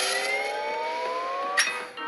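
Cartoon sound effect: a rising, siren-like whine of several tones together, climbing steadily and cut off by a sharp hit about a second and a half in.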